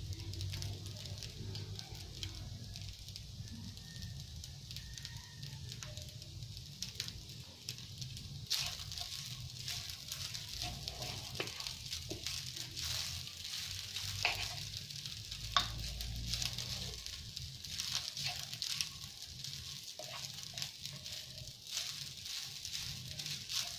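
Fried rice sizzling in a nonstick frying pan, with a wooden spoon scraping and tossing it. From about eight seconds in, the stirring becomes busier and the sizzle and scraping grow louder.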